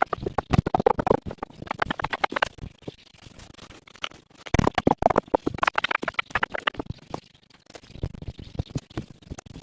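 Irregular scratching, scraping and crunching clicks of something being handled, louder in clusters about half a second in and again around five seconds in.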